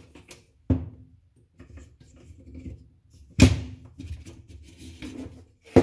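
Metal adjustable support leg being fitted into the bracket of a metal side tray: three sharp metallic knocks, each with a short ring, the loudest about halfway through, with faint handling rattles between.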